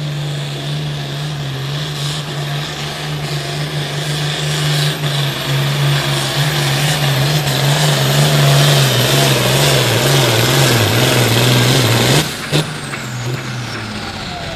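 Hot farm class pulling tractor's diesel engine at full throttle dragging a weight-transfer sled. It grows louder and its pitch sags lower as the sled's load builds, then the sound breaks off suddenly about twelve seconds in and drops to a lower level.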